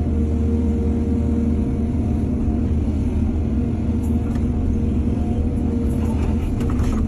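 Heavy diesel engine of earthmoving machinery running steadily, with a few light clatters near the end.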